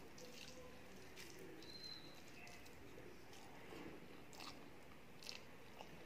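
Faint hand-eating sounds: rice being mixed with the fingers and chewed, with a few soft, separate mouth clicks and smacks.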